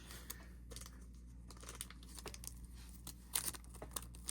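Faint clicks and rustles of small watch parts and a strap being handled, with a brief cluster of sharper clicks about three seconds in, over a steady low hum.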